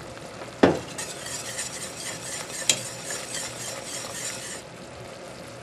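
Wire whisk stirring a bubbling, cornstarch-thickened brown sauce in a stainless steel pot, with a steady sizzling hiss. A sharp knock about half a second in; the hiss fades near the end.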